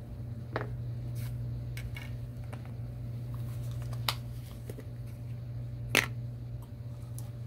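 Small handling noises from hands working with objects on a desk: a scattered series of short clicks and taps, the sharpest about four and six seconds in, over a steady low hum.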